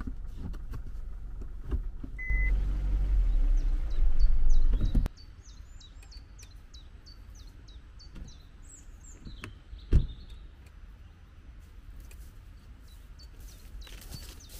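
A Kia hatchback's engine rumbles, heard from inside the cabin, with one short beep about two seconds in; the rumble grows louder and then cuts off abruptly. After that, small birds chirp repeatedly, and there is a single sharp knock near the middle.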